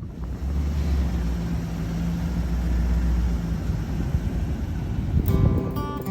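A vehicle engine running steadily under a rushing, wind-like noise. Acoustic guitar music comes in near the end.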